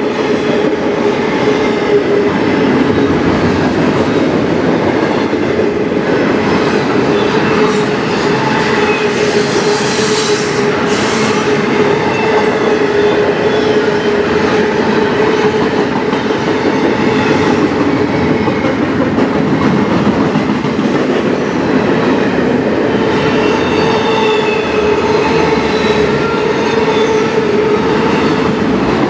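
CN freight train cars passing at full speed, steel wheels rolling and clattering over a rough section of track. A steady ringing tone runs underneath, with a few sharper clicks from the wheels and rail around the middle.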